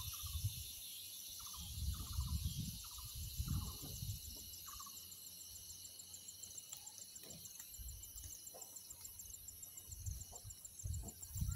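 Insects shrilling steadily in hillside forest, one of them with a fast, even pulsing trill. Short chirps repeat during the first few seconds, and low wind buffeting on the phone microphone comes and goes, strongest near the end.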